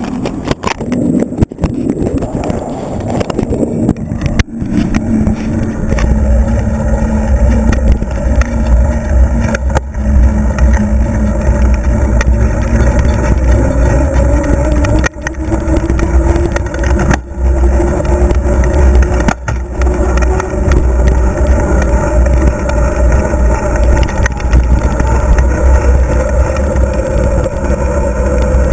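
Wind buffeting a GoPro's microphone inside its waterproof housing, held out on a selfie stick from a moving bicycle, with a heavy low rumble. A faint whistle slowly rises in pitch through the ride, and there are a few sharp knocks.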